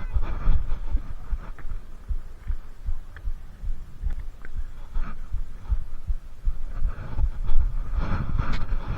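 Low, irregular thumping rumble on the camera microphone, the kind made by wind buffeting and the camera being handled, with a few faint brief higher sounds mixed in.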